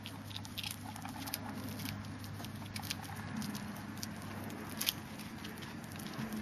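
Guinea pig chewing a crisp leafy green, a fast irregular run of small crunching clicks, with one sharper crunch about five seconds in.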